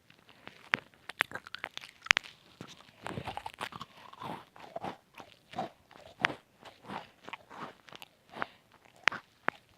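Chocolate chip cookie bitten and chewed: sharp crunches for the first few seconds, then a steady chewing rhythm of about one and a half chews a second.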